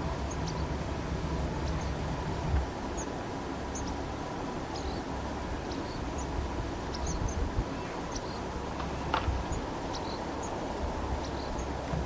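Outdoor ambience: a steady low rumble with scattered faint, high chirps of small birds, and one sharp click about three quarters of the way through.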